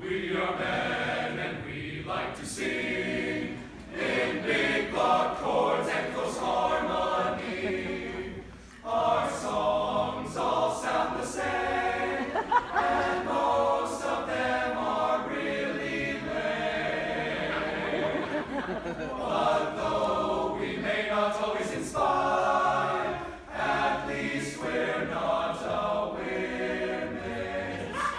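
High school men's a cappella choir singing an upbeat song in close harmony, with no instruments.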